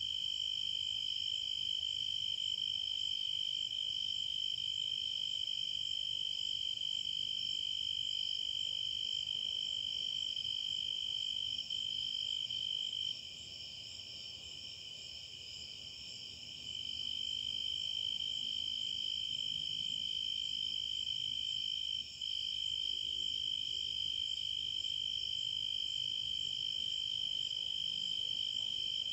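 Crickets trilling in a steady, continuous chorus. The loudest trill weakens for a few seconds about halfway through, then returns.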